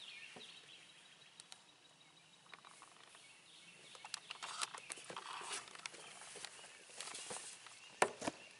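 Faint outdoor ambience with scattered rustles and footsteps of people moving about on bare ground, and a sharper click near the end.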